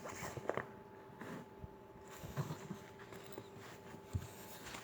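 Faint, scattered clicks and taps of packaging and paper being handled during a guitar unboxing, with a sharper tap about half a second in and another near four seconds.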